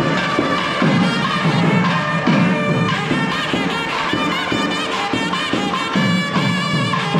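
Nadaswaram and thavil playing kavadi dance music: a loud, reedy melody with bending notes over drum strokes about twice a second.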